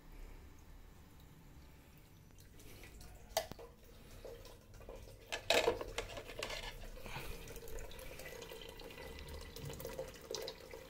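Water splashing and dripping in a small reef aquarium as a hand works in the tank, quiet at first, with a few sharper splashes from about three seconds in.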